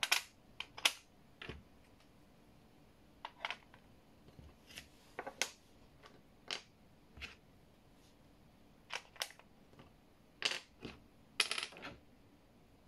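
Hard plastic game pieces clicking and clacking as they are picked up, set down and fitted into the star-shaped board, in irregular sharp clicks, some in quick pairs, with quiet gaps between.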